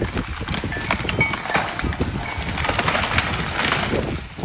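Strong storm wind gusting and buffeting the microphone, with a rough crackling rush of noise like leaves and branches thrashing. A few faint, short high chirps come through about a second in.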